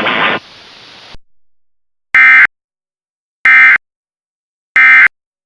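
Emergency Alert System end-of-message data tones: three short, loud, buzzy digital bursts a little over a second apart. This is the EOM code that closes the broadcast flash flood warning.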